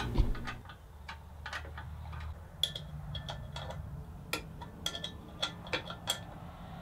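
Scattered small metallic clicks and taps, each with a brief ring, as bolts are fitted to mount a bracket and switch box onto the grinder's electric motor. A low steady hum lies underneath.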